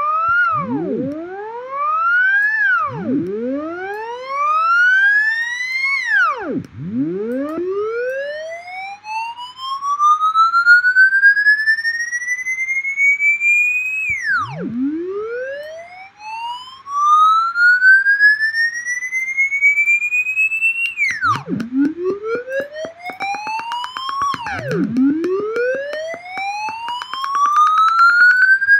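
Synthesized tone from Blender Audio Nodes oscillators, a siren-like glide whose pitch rises slowly and then drops suddenly, over and over. The early sweeps last about two to three seconds and the middle ones about seven. From about three-quarters of the way in, the tone gets a fast, even pulsing flutter as the second oscillator's settings are changed.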